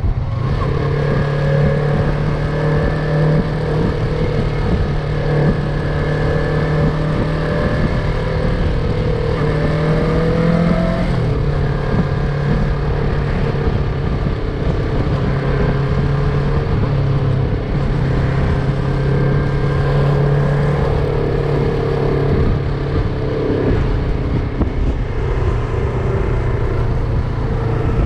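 Yamaha MT-03 motorcycle engine running steadily under way, with wind rushing past. About ten seconds in, the engine note rises briefly and then drops back.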